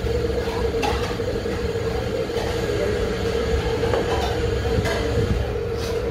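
Steady mechanical hum with a constant mid-pitched tone and low rumble, with a few light clicks of steel tableware on the table.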